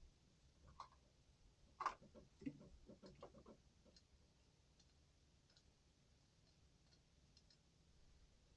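Near silence, with a few faint clicks and knocks about two to three and a half seconds in.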